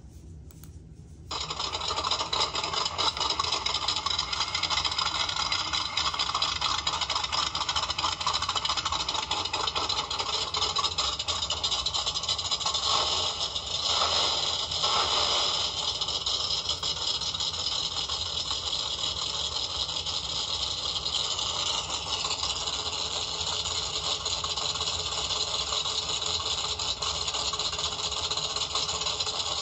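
Engine of a 1955 Chevrolet Bel Air vintage stock car racer running. It comes in abruptly about a second in, runs steadily, and swells briefly about halfway through.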